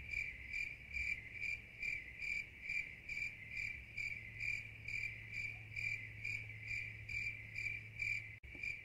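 Cricket chirping in a steady rhythm, a little over two chirps a second, over a faint low hum; the chirping stops near the end.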